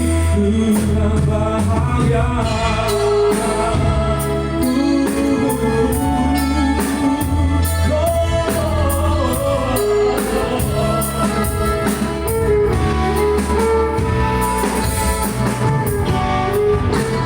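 A pop song playing: singing over a band backing with a steady beat.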